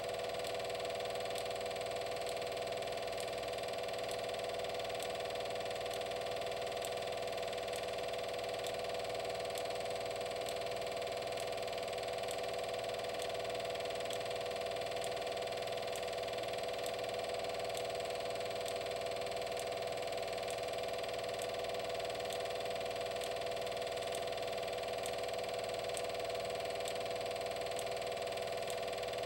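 Steady mechanical hum with faint, evenly spaced ticks, unchanging throughout; no voices.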